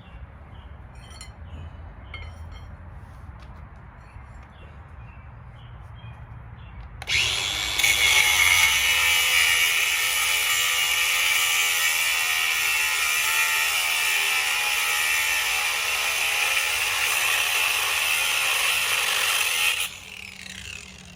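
Ryobi ONE+ 18V cordless 4-1/2 in. angle grinder (P421) cutting through 1/2 inch steel rebar. It starts suddenly about seven seconds in, runs with a loud, steady, high-pitched grinding whine for about thirteen seconds, then cuts off and winds down near the end.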